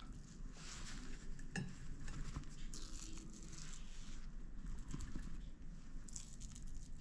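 Spoon scraping and spreading the mashed chickpea mixture onto toasted sourdough bread: soft, irregular scraping and rustling with a light click about one and a half seconds in.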